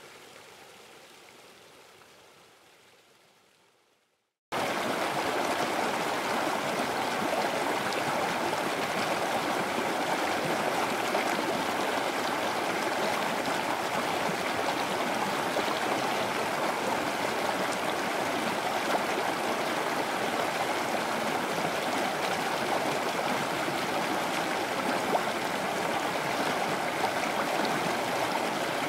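A quieter water sound fades out over the first four seconds. After a moment of silence, the steady rush of a waterfall starts abruptly and keeps on evenly.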